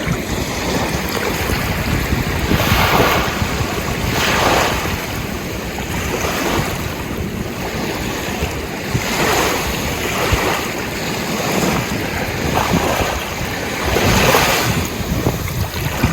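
Ocean surf: waves breaking and washing in every few seconds over a steady rush of water, with wind rumbling on the microphone.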